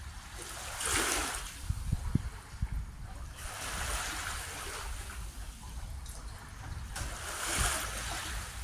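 Small waves lapping in slow swells about every three seconds, each a soft wash that rises and fades, over a low rumble of wind on the microphone.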